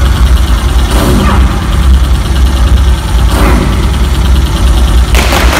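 Loud, steady low rumble like an engine running, broken by three short noisy bursts: about a second in, around three and a half seconds in, and near the end.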